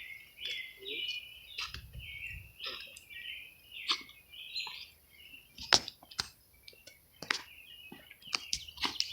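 Small birds chirping in quick repeated short notes, with scattered sharp clicks, the loudest about halfway through.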